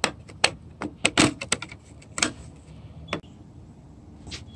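Plastic trim piece at the mirror base clicking and knocking against the van's door frame as it is pushed and worked into place: about nine irregular sharp clicks, most of them in the first couple of seconds.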